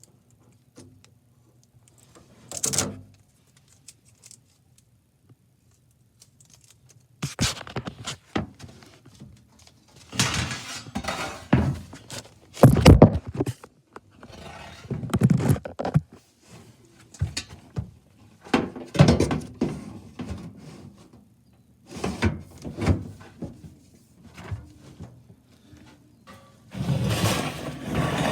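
Irregular thunks and clatter of hard objects being knocked and handled: one knock a few seconds in, then repeated clusters of knocks and rattling from about a quarter of the way through onward.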